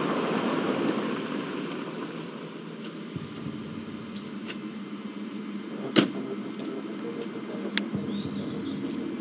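Police patrol car running with a steady low hum, then one sharp knock about six seconds in and a lighter click near eight seconds.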